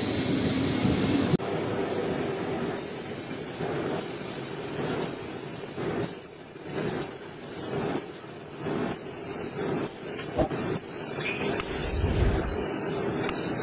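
High-pitched whine of a CNC machine, repeatedly dropping in pitch and recovering in short bursts. The bursts come about once a second at first and grow shorter and quicker toward the end.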